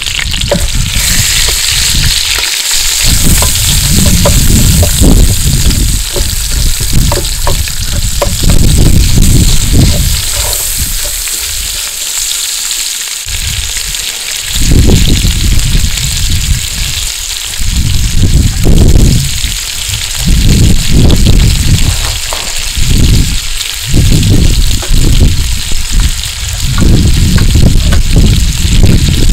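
Sliced yellow onion sizzling in oil in a cast-iron Dutch oven, stirred with tongs at the start; the onion is in its first minutes of sautéing, softening toward translucent. Irregular low rumbling gusts come and go over the steady sizzle and are the loudest part.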